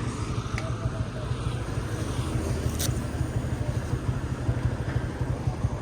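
Motorcycle engine idling steadily, with a couple of light clicks.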